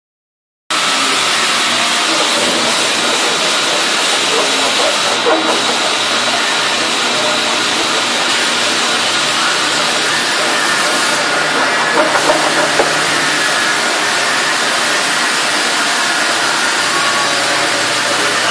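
1995 Thermwood C67 CNC router running under power: a steady, loud hiss with a thin high whine over it.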